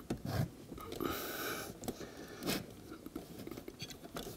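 Hands working wires and the ground screw in a dishwasher's metal junction box: light handling and scraping with a few small clicks and knocks, and a short scraping hiss about a second in.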